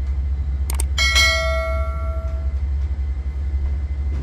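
A sharp metallic strike about a second in that rings on like a small bell for about a second and a half, just after a couple of quick clicks. A steady low hum runs underneath.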